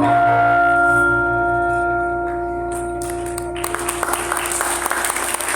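Gamelan bronze metallophones and gongs ringing out on a final struck note and slowly fading. Applause starts about three and a half seconds in.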